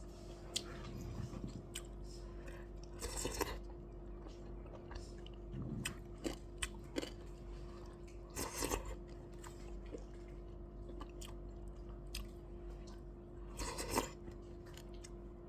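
Close-up chewing and crunching of food, with scattered small clicks and three louder crunching bursts at about 3, 8.5 and 14 seconds, over a steady low hum.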